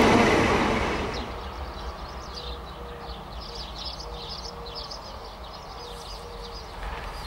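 Train noise fading out over the first second, then birds chirping over and over above a faint low, steady rumble.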